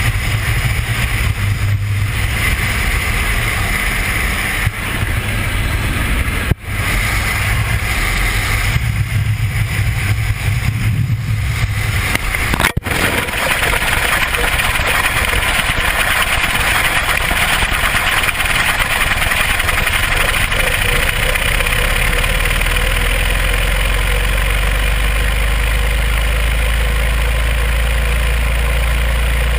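Loud, steady rushing roar of wind over a falling GoPro camera's microphone, with two brief dropouts about six and twelve seconds in, and a deeper rumble in the last part.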